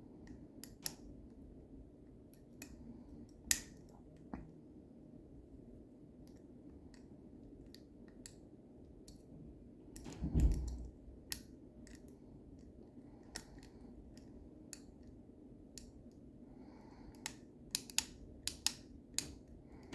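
Irregular small metallic clicks and ticks of a lever lock pick and tension tool working the levers inside a lever lock, with one duller knock about halfway through and a quicker run of clicks near the end.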